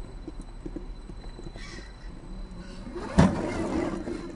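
Absima CR 3.4 Sherpa (YK4102) RC rock crawler's small electric motor and gear drivetrain whining as it climbs a rock, with a sharp knock about three seconds in as it bumps over the stone.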